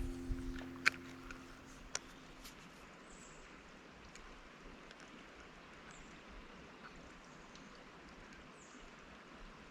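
Acoustic guitar music ends in the first second or two. Then a faint outdoor background of creek water with short, high, falling bird chirps every few seconds and a few light clicks near the start.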